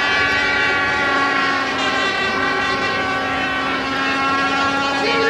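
Football stadium crowd noise carrying a loud, sustained horn-like tone, held throughout with several steady pitches that drift slightly.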